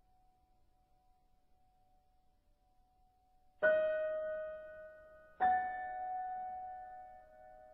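Sparse minimal music: a faint held tone, then two chords struck on a keyboard about two seconds apart, each left ringing and slowly fading.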